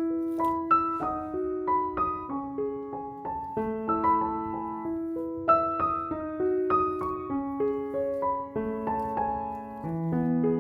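Background piano music: a light melody of single struck notes and chords played at an easy pace.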